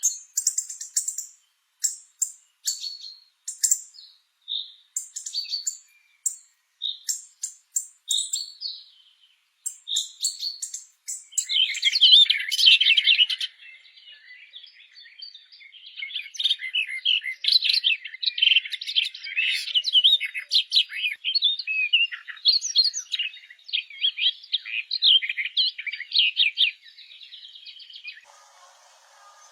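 Songbirds singing: a string of short, separate chirps with very high notes, then, from about eleven seconds in, a fast, continuous warbling song that stops shortly before the end.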